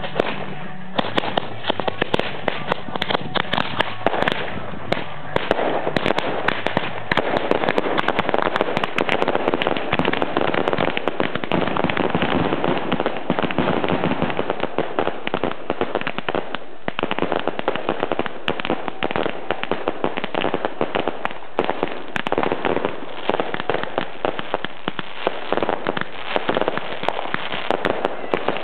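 Quickmatched consumer firework cakes and titanium salutes firing together as a finale. It is a dense, continuous barrage of crackles and sharp bangs that builds about a second in and is thickest in the middle.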